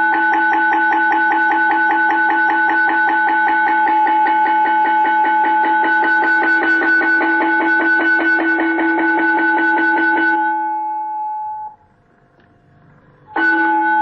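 Automatic school bell system playing its long 'traditional' school bell tone: the rapid, continuous strokes of a ringing metal bell. It stops about ten and a half seconds in and rings out briefly. Near the end a new bell tone starts sharply.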